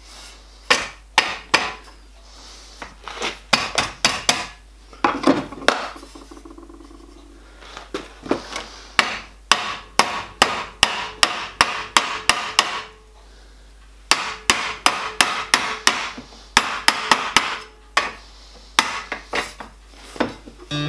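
Mallet tapping the edge of a copper boiler plate to form it, in runs of sharp taps, several a second, broken by short pauses.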